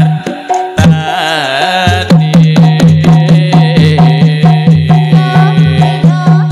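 Javanese gamelan music accompanying a jathilan dance: a wavering melody line, then from about two seconds in a steady, driving drum beat of roughly four strokes a second under ringing pitched notes.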